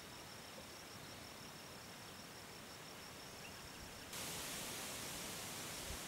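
A high, rapidly and evenly pulsing insect call over a faint steady hiss; about four seconds in, the hiss suddenly gets louder and stays that way.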